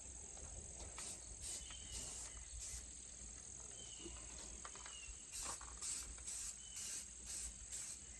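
Insects calling: a steady high trill with short buzzy pulses repeating about twice a second.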